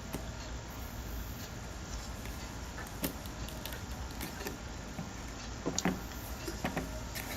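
Scattered small clicks and knocks of a 9-volt battery being pressed and worked out of a digital multimeter's plastic battery compartment, over a steady low hum.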